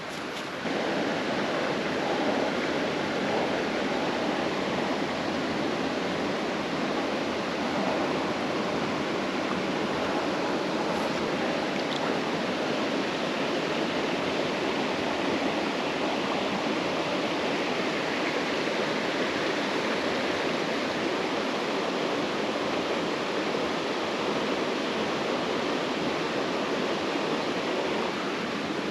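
Creek water rushing steadily, an even wash of noise.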